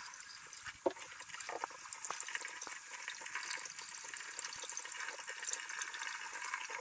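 Kitchen tap running steadily while potatoes are rubbed clean by hand under the stream, with a few light knocks.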